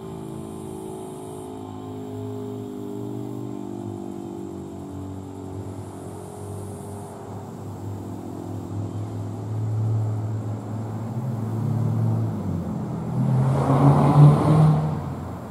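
Federal Signal Model 5 outdoor warning siren winding down at the end of its steady attack signal, its tone sliding slowly lower and fading. Near the end a passing vehicle swells up loudly and fades.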